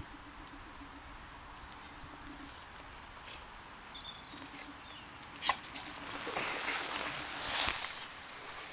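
A Staffordshire bull terrier running close by across grass with a stick in its mouth: a patter and rustle of paws and body, with sharp ticks, that starts about halfway and grows loudest near the end.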